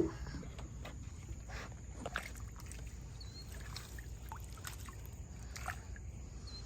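Shallow water lapping and lightly sloshing, with scattered small clicks and knocks, as a crabbing hand line is drawn in by hand.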